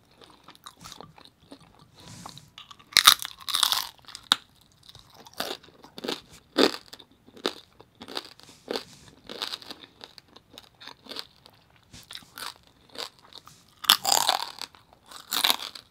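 A person biting and chewing crunchy pieces of roasted pig head (lechon), with irregular crunches and wet chewing clicks. The loudest crunches come about three seconds in and again near the end.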